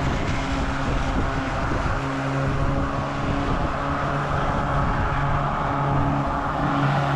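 Cordless battery-powered electric lawn mower running, pushed across a grass lawn as it cuts: a steady motor-and-blade hum with a held low tone.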